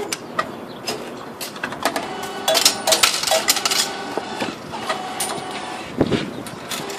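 Clicks, clinks and paper handling at a light rail ticket vending machine as the paper ticket is dispensed and taken, busiest from about two to four seconds in, with a dull knock near the end.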